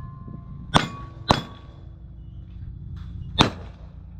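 Pistol shots striking steel targets: three sharp metallic clangs, each ringing on at a steady pitch. The first two are about half a second apart and the third comes about two seconds later.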